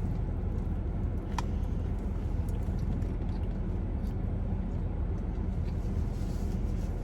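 Air conditioner running with a steady low rumble, with one brief click about a second and a half in.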